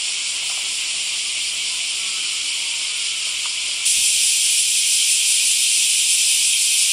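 A dense chorus of cicadas buzzing in the summer trees: a steady, high, hissing drone that gets louder about four seconds in.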